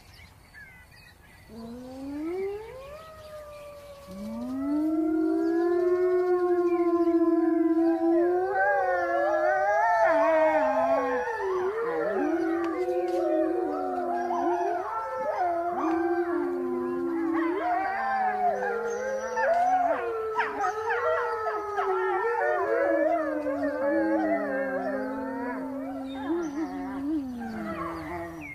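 Wolf pack howling in chorus. A single rising howl comes first, and a few seconds in many overlapping howls join, high and low, rising and falling together. They die away near the end.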